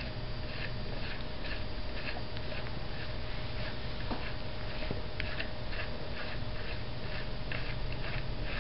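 Faint, light metallic clicks repeating two to three times a second as a brake shoe nut is threaded by hand onto a coaster brake hub, over a low steady hum.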